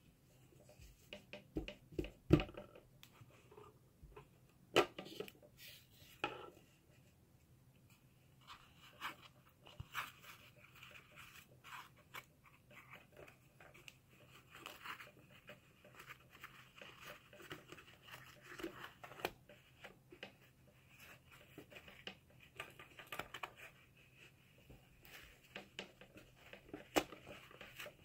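Felt and folded fabric rustling and scraping as hands press a felt backing circle into the back of an embroidery hoop, with a few sharp knocks of the hoop or hands on the table, the loudest about two seconds in.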